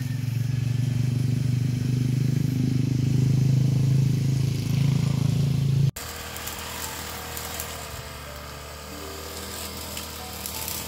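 Small two-stroke brush cutter engine running steadily and loud, then dropping abruptly to a fainter, higher engine whine about six seconds in.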